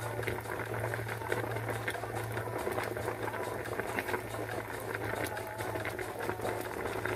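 Water boiling hard in a pot of cassava chunks: a dense, rapid crackle of bursting bubbles, over a steady low hum.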